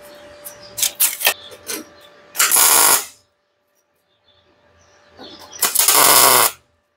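MIG welder tack-welding a steel bracket to sheet steel: two short bursts of crackling arc, one about two and a half seconds in and one near the end, each under a second. A few sharp clicks and knocks come before the first weld.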